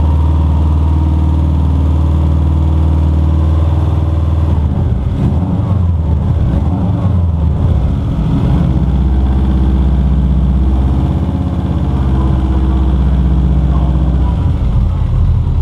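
Freshly rebuilt Subaru GC8 Impreza flat-four engine running in the car, mostly at idle, its note shifting a few times along the way.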